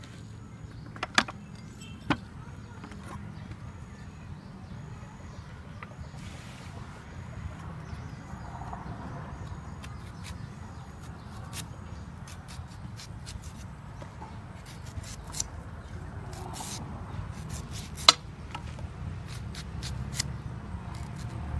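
Kitchen knife clicking and scraping as a ripe mango is peeled and sliced, with sharp knocks of the blade: two near the start and a cluster near the end, loudest shortly before the end. A steady low rumble runs underneath.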